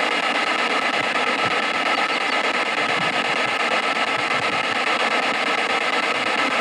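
P-SB7 spirit box sweeping the radio band at 100 milliseconds per step on forward sweep, giving a steady hiss of radio static through its small speaker.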